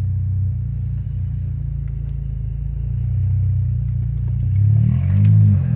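Saab 9-3's engine running steadily, then revved up and down a couple of times near the end.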